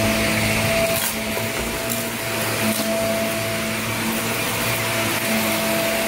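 Corded upright vacuum cleaner running steadily over carpet, its motor giving a constant hum. A couple of brief clicks come about one and two seconds in.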